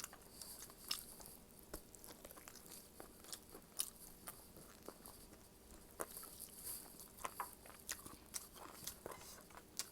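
A person chewing and eating, with irregular faint mouth clicks and bites.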